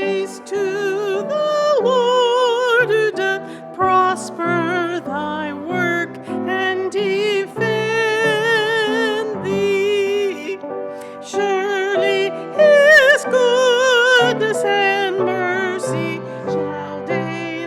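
A hymn sung with piano accompaniment: voices with vibrato over piano chords.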